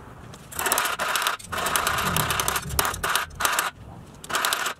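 A pressed-steel part from a 1965–66 Tonka stake truck is worked with a hammer at a steel bench vise: several rough metallic bursts of scraping and rattling, each under a second long.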